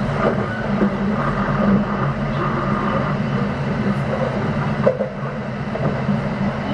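Kintetsu 9020 series electric train (Mitsubishi electrical equipment) running between stations, heard inside the car: a steady rumble of wheels on rail under a continuous low motor hum, with a single sharp knock about five seconds in.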